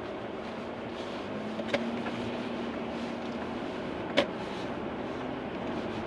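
Steady road noise inside a moving car, engine and tyres on a wet road, with a faint steady hum. Two sharp clicks stand out, one under two seconds in and another about four seconds in.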